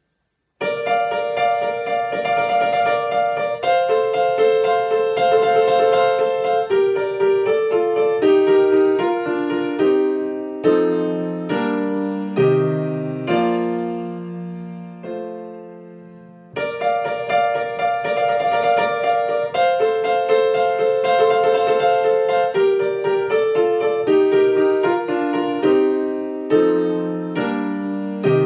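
Solo grand piano played with both hands: a lively piece of repeated, struck chords and short running figures. Midway a descending passage slows and dies away, then the opening section starts again.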